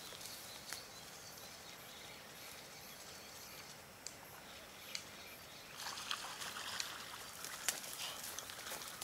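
Quiet river-bank ambience with faint trickling water and faint high-pitched pulses repeating about twice a second. From about six seconds in, a scatter of small clicks and rustles joins it.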